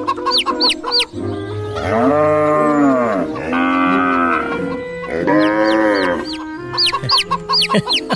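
Farm-animal sounds: three drawn-out cow moos one after another in the middle, with rapid high chirping before and after them.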